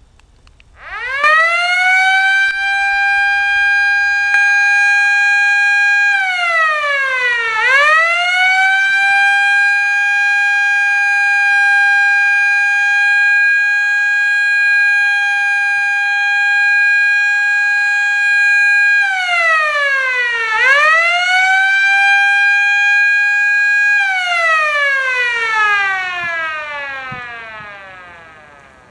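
Federal Signal Model A electromechanical siren sounding a short alert: it spins up about a second in to a loud, steady wail. Twice its pitch sags and climbs back. From about four seconds before the end it winds down in a long falling glide.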